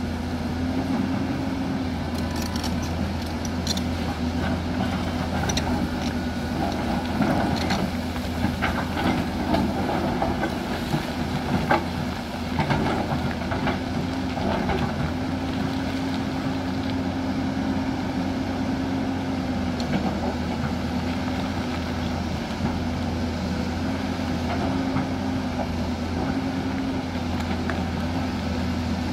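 Hyundai crawler excavator's diesel engine running steadily under load as it digs into a hillside, with scattered clanks and rattles of rock and soil at the bucket, mostly in the first half.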